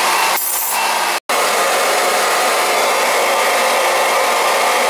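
Electric oil transfer pump running steadily, pumping heating oil from the old tank into barrels. The sound drops out for an instant just over a second in.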